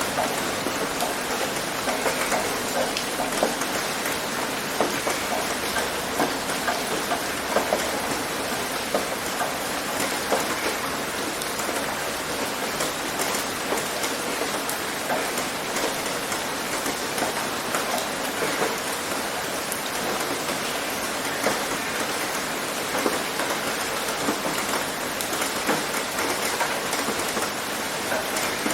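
Steady rain pattering on a tin roof, many individual drops ticking through a dense, even hiss.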